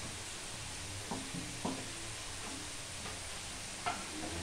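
Food deep-frying in hot oil, a steady sizzle, with a few short knocks, the loudest near the end.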